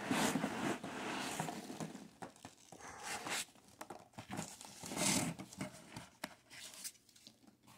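Cardboard flaps and foam packing peanuts rustling and scraping as hands dig into a shipping carton, in several bursts with quieter gaps between.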